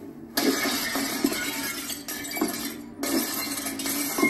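Glass smashing and clattering in a fight, with a chrome metal stool swung as a weapon. It comes as a long crash starting about half a second in and a second one just after three seconds.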